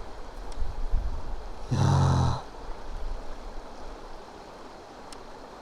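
Wind gusting against the microphone over the steady rush of a mountain stream, with a short vocal grunt from a man about two seconds in.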